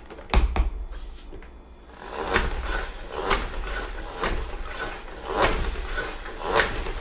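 O-Cedar EasyWring spin mop bucket, its foot pedal pumped roughly once a second from about two seconds in, each press spinning the microfiber mop head in the wringer basket with a whirring clatter as the excess water is spun out. A single sharp knock comes about a third of a second in.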